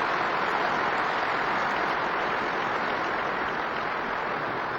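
Large audience applauding steadily in a big hall, a dense even clapping with no single claps standing out. The recording is played at double speed.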